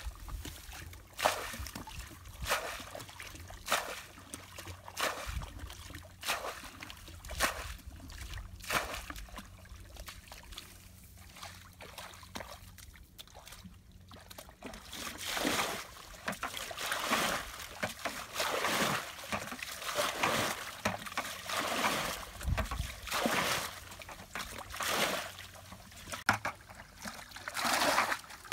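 Muddy water being scooped and tipped out of a bucket and basin, splashing over and over at about one splash a second, with a short lull about halfway through.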